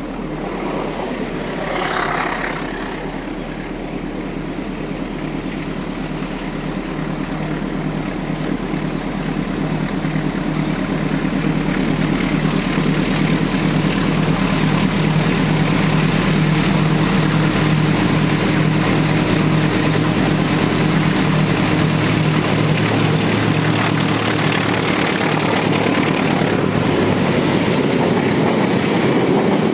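Diesel-electric locomotive engine running as a passenger train comes slowly toward and past the listener, a low steady drone that grows louder over the first half and then holds.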